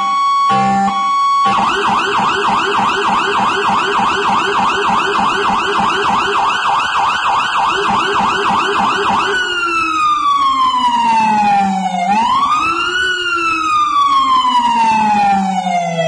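Federal Signal PA300 electronic siren with a Rumbler low-frequency speaker. It opens with short alternating two-pitch pulses, switches to a fast yelp of about four cycles a second, and about nine seconds in changes to a slow wail that falls, rises quickly and falls again. The Rumbler's deep tone follows the siren's pitch well below it.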